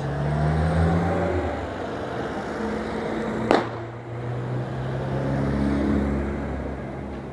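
Street traffic: car engines running as cars drive past close by, the hum swelling and fading twice. A single sharp click about halfway through.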